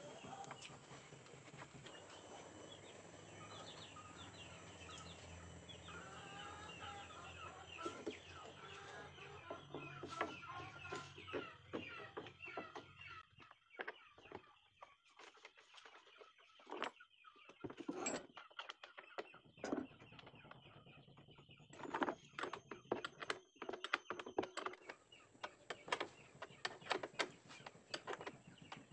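Chickens clucking in the background through the first half, then a run of sharp clicks and knocks, loudest about two-thirds of the way through, from hand work on a boat's propeller shaft and its wooden clamp block.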